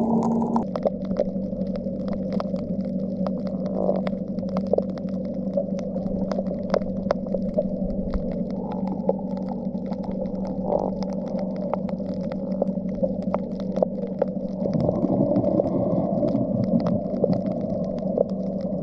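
Underwater sound as heard by the camera: a steady low hum, with many sharp clicks scattered irregularly through it.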